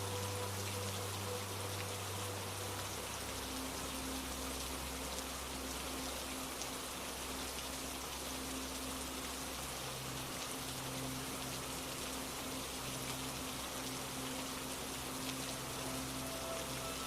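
Steady rain falling, an even hiss of many small drops. Soft low held tones sound underneath and change pitch a few times.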